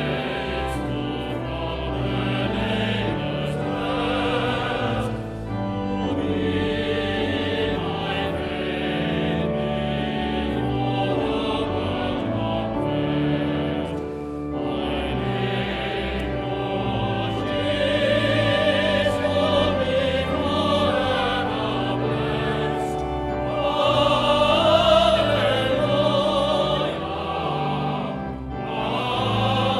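Choir singing a slow sacred piece over held low accompanying notes, in phrases of a few seconds with short breaths between. In the later part a wavering, vibrato voice line stands out, loudest about 25 seconds in.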